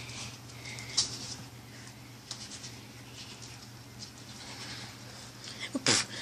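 Light pattering and scratching of pets' paws moving about on the floor, over a low steady hum, with one sharper knock near the end.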